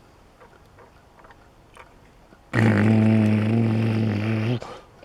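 A man imitating an engine with his voice, a steady, low buzzing drone, as toy-forklift play. It starts abruptly about halfway through, breaks off shortly before the end and starts again, after a few faint clicks of a plastic toy being handled.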